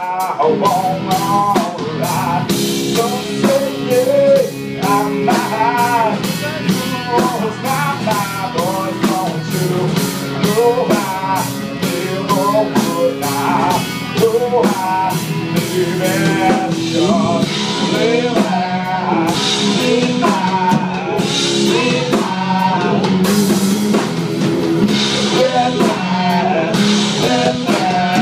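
Live blues-rock trio playing: distorted electric guitar, electric bass and drum kit, with a lead line that bends and wavers over sustained low notes. The cymbals get heavier and brighter in the second half.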